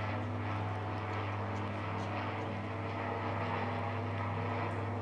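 Light high-wing propeller plane flying overhead, its engine and propeller giving a steady, even drone.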